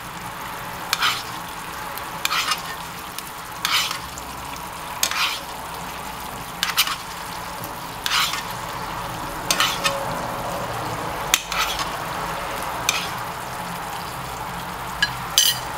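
Chilli sauce bubbling at a boil in a frying pan, with a metal spoon clinking and scraping against the pan about every second and a half as sauce is spooned over the crab.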